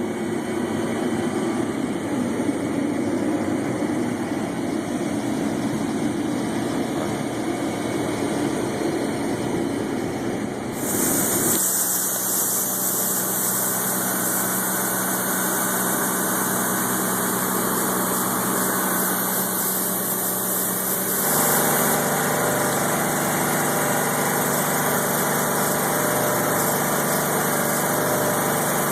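Combine harvester running steadily during wheat harvest: a continuous engine and machinery drone. Its character changes abruptly twice, about eleven and about twenty-one seconds in, with the steady hum taking on a different pitch.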